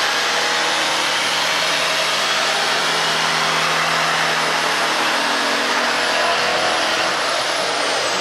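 Electric hand planer running steadily as it is pushed along a curved wooden workpiece, a dense rushing noise with a thin high whine. Near the end the whine begins to fall in pitch as the motor slows.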